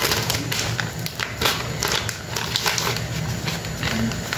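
Plastic mochi bag crinkling and crackling as it is handled and opened by hand, a quick run of sharp rustles and clicks.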